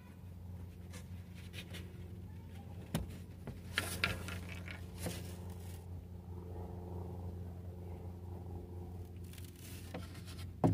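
A plywood bed-platform panel being moved and handled: a few scattered wooden knocks and scrapes, the sharpest knock near the end, over a steady low hum.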